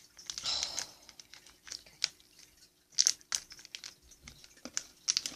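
Plastic snack wrapper crinkling and rustling in short bursts as it is handled.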